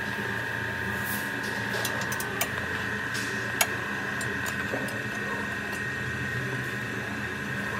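A spanner is worked on the front suspension nuts under a car, giving a few sharp metallic clicks, the loudest about three and a half seconds in. Under them runs a steady machine hum with a constant high whine.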